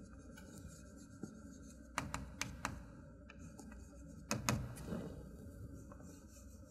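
Chalk writing on a chalkboard: faint scratching with sharp taps as the chalk strikes the board, a cluster of them about two seconds in and another a little past four seconds.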